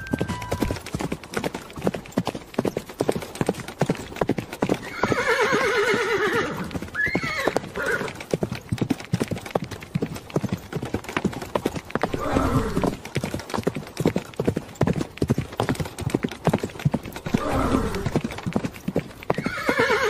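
Horse hooves clopping in a quick, continuous patter while a horse whinnies three times, each a long quavering neigh: about a quarter of the way in, near the middle, and near the end.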